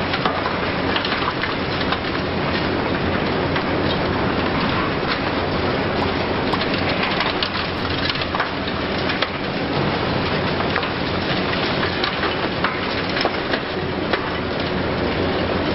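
Hitachi Zaxis 870 high-reach demolition excavator at work: its diesel engine running steadily beneath a dense, continuous crackling and clattering of breaking concrete and falling debris.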